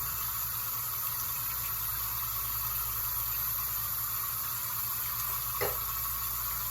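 Steady hiss with a low hum under it, and one short faint sound about five and a half seconds in.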